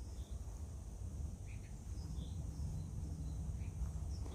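Quiet outdoor ambience: a few faint, short bird chirps scattered over a low rumble and a faint steady high hiss.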